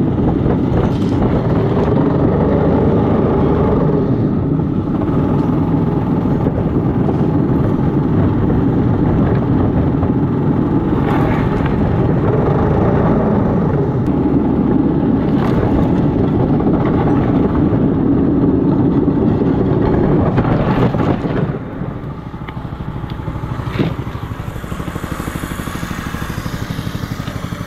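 Motorized railcart's small engine running steadily under load, with a few scattered knocks. About three-quarters of the way through it eases off and runs quieter.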